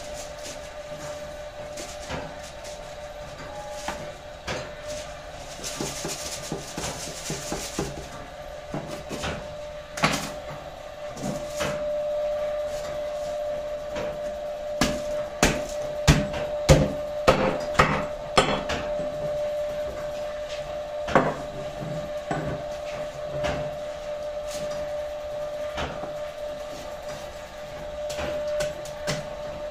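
Knife carving whole roast lamb on a wooden cutting board: irregular knocks of the blade against the board, thickest about halfway through, over a faint steady hum.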